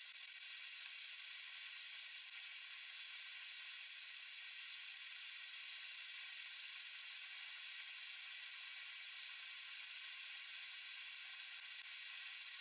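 A steady, even hiss with no hammer blows or other distinct strikes.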